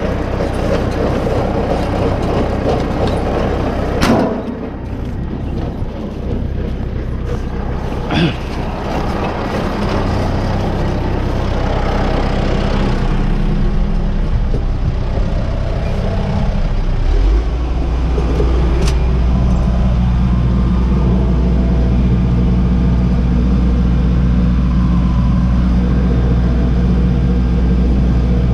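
Tractor engine running steadily with a low drone, with sharp knocks about 4 and 8 seconds in. About two-thirds of the way through, the low drone steps up louder and then holds steady.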